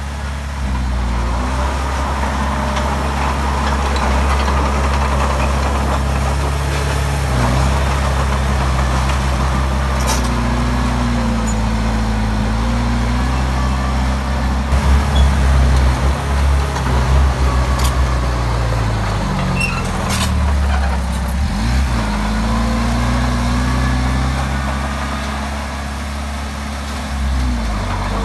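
Heavy machinery's diesel engine running steadily under work. Its pitch dips and comes back up a little after two-thirds of the way through, and again near the end. There are a few sharp metallic clanks along the way.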